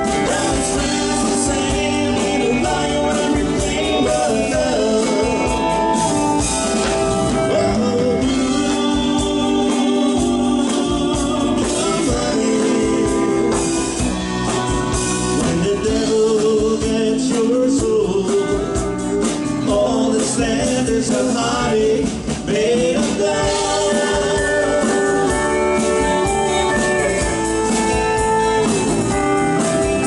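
Country band playing live: drums, bass, electric and acoustic guitars and keyboard, with a lead line carrying the melody over steady chords.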